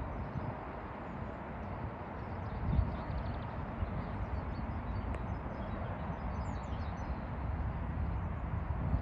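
Steady outdoor background rush with low rumbling gusts, and a few faint bird chirps about halfway through.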